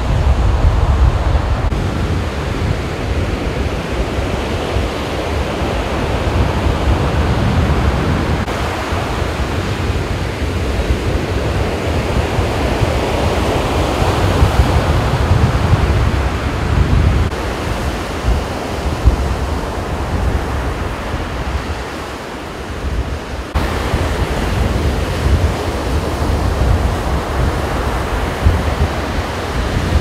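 Surf on the beach with wind blowing on the microphone: a steady rushing noise with a heavy low buffeting, swelling and easing now and then.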